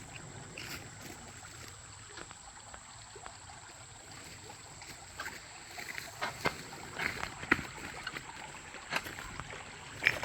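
Shallow creek water splashing and sloshing, with scattered small knocks and clicks that come more often over the second half.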